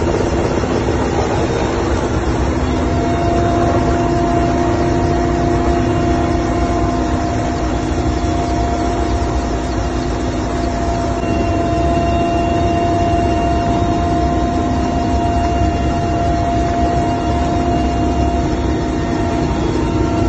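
Military helicopter's engines and rotor running, heard from inside the cabin with the side door open: a loud, steady rumble with steady whines over it, a higher whine joining about three seconds in.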